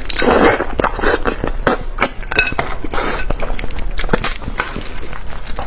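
Close-miked eating of a braised fish head: wet mouth smacks, sucking and chewing, with many quick clicks and a few brief noisy slurps.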